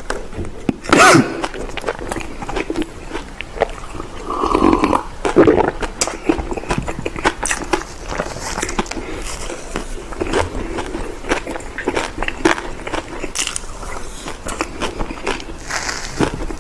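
Close-up eating of crunchy sweets: irregular crackling bites and chewing, with a couple of louder moments about a second in and around five seconds.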